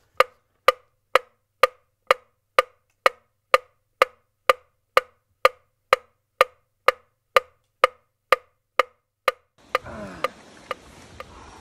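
Metronome ticking at a steady tempo, about two short woody clicks a second, all alike. Near the end outdoor rustling and handling noise come in under the ticks, which fade out.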